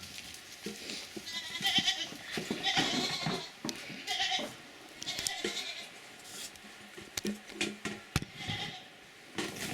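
Goats bleating, about half a dozen separate calls in a row. A single sharp knock comes near the end.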